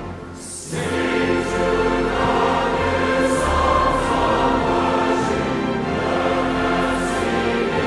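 A choir singing sacred music with sustained, held chords; the sound drops briefly just at the start and swells back in under a second.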